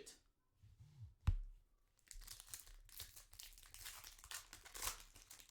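Foil trading-card pack wrapper crinkling and tearing open for about three seconds, after a single sharp tap about a second in.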